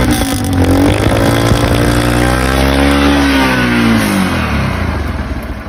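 A 150 cc motorcycle engine revved once: the pitch climbs, holds briefly, and falls back, then the sound drops off near the end.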